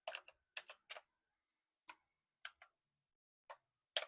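Keys of a Jedel WKL102 wireless mechanical keyboard being pressed one at a time, making sharp clicks at an uneven pace, some in quick pairs, as the backlight effects are stepped through.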